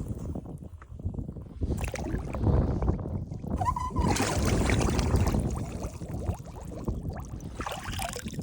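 Handheld air horn canister fired upside down: a brief, weak, wavering horn tone about three and a half seconds in, then a loud hiss of escaping propellant for about two seconds that fades as the can runs out of gas.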